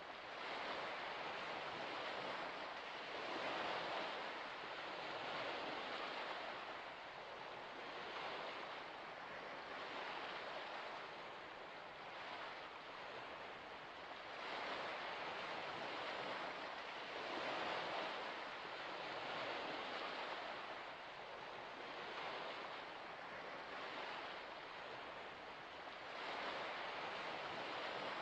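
Gentle waves washing onto a shore, a soft rushing noise that swells and fades every two to four seconds.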